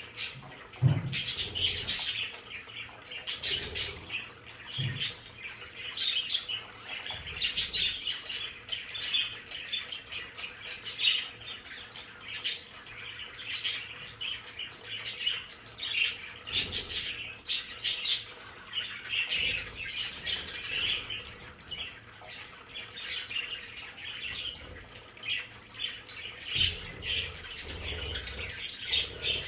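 A flock of budgerigars chattering and chirping, with a steady stream of short, sharp calls overlapping. There are occasional low thumps and wing flutters among them.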